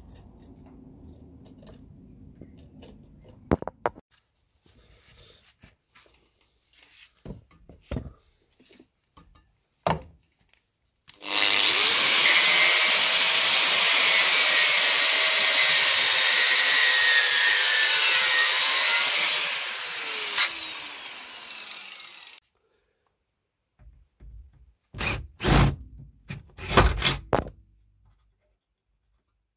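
Angle grinder working on metal under the car for about ten seconds, a loud whine whose pitch wavers as the disc bites, then slides down as it winds down after being switched off. Light clicks and knocks come before it, and a few louder knocks come near the end.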